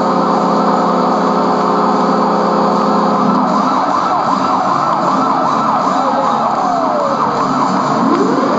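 An arena goal horn sounds in steady chord tones over a roaring crowd, signalling a Capitals goal, and cuts off about three seconds in. Then many overlapping siren-like wails rise and fall over the cheering, ending in one long rising wail near the end.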